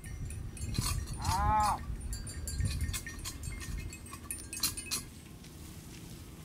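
Cattle in a field: one short, high bleat-like call from a calf about a second in, with scattered light clicks and a low rumble throughout.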